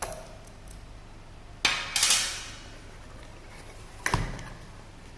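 Metal bicycle parts being handled and set down on a hard surface: a few sharp knocks, the loudest a short clattering rattle about two seconds in, another knock about four seconds in.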